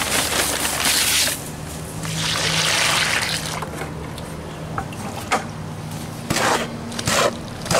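Dry pre-mixed mortar pouring out of a paper bag into a wheelbarrow, a rushing hiss that comes and goes in two spells. Then a mortar hoe scrapes through the mix in the barrow in a few short strokes near the end.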